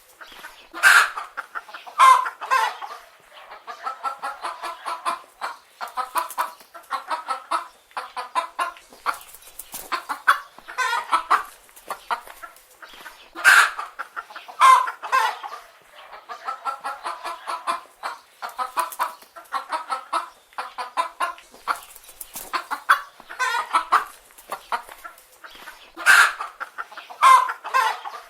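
A flock of chicken hens clucking and calling, with runs of quick clucks and a few louder, sharper squawks.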